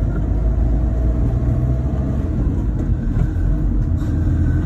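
Motorhome driving slowly, heard from inside the cab: a steady low engine and road rumble.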